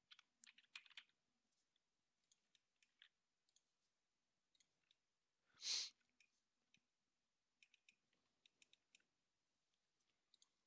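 Faint, scattered computer mouse clicks and keyboard taps over near silence, with one short, louder hiss about halfway through.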